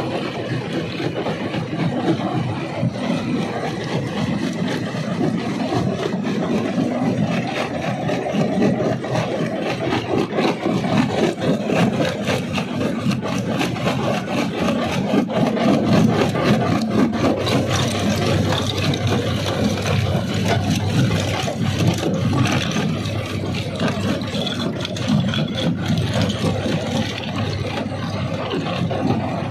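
Rock crusher running under load: a steady machinery drone with frequent sharp cracks and knocks as stone is broken.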